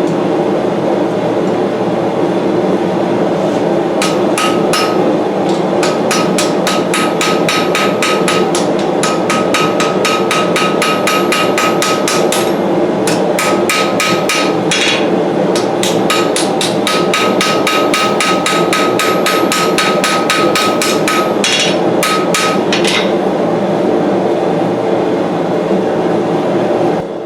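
Hammer striking hot knife steel on an anvil in fast runs of about four blows a second, with short pauses and a metallic ring, over the steady roar of a gas forge burner. The hammering stops a few seconds before the end, leaving only the forge roaring.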